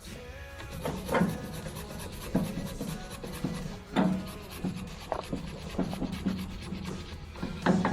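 Wire brush scrubbing out a pin hole on a round baler so the pin will slide in, in short, irregular scraping strokes.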